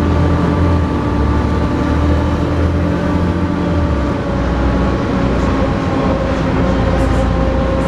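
Volvo B7TL double-decker bus heard from on board, its diesel engine pulling hard under load with the model's characteristic vacuum-cleaner-like 'hoover' whine over a deep rumble. The note holds steady, with a brief dip a little after halfway.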